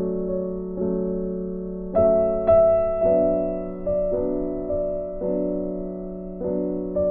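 Background music: slow piano chords, each struck and left to fade, with a new one about every second. The strongest notes are struck about two seconds in.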